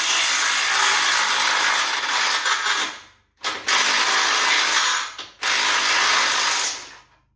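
Cordless impact wrench hammering, undoing the upper control arm shaft bolts on a Holden HQ front chassis. Three long runs with two brief stabs of the trigger between them, the last run stopping shortly before the end.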